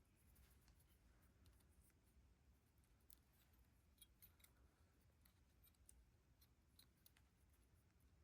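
Near silence, with faint light clicks and ticks of small carburetor parts being handled and fitted.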